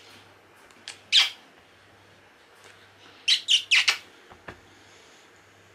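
Kissing smacks of lips on a dog's head: one about a second in, then a quick run of four close together just after three seconds.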